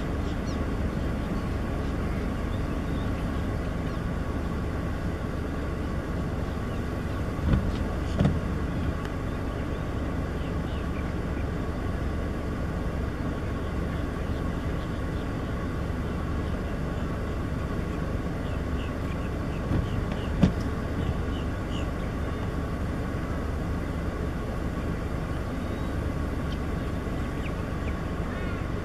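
Steady low outdoor rumble with faint high chirps through it. A few soft knocks come about seven and a half and eight seconds in, and twice around twenty seconds in; the later of those two is the loudest.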